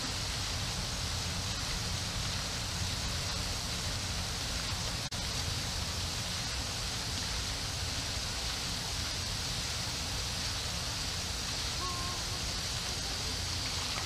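Steady outdoor background noise: an even hiss with a low rumble underneath, broken by a short dropout about five seconds in.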